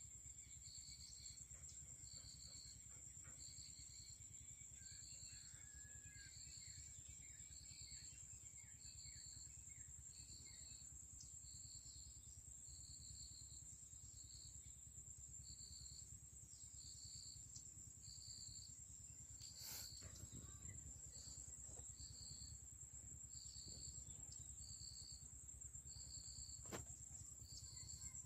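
Faint insect calls: a steady high-pitched drone with a rhythmic chirp about once a second, over a low rumble of wind.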